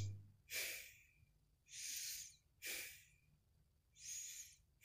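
A person breathing heavily close to the microphone: about five breaths roughly a second apart, short sharp ones alternating with longer ones.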